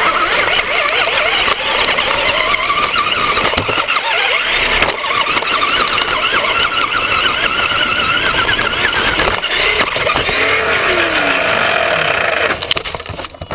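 Traxxas RC car's motor and drivetrain whining loudly from on board, the pitch rising and falling again and again with the throttle. The whine stops sharply near the end.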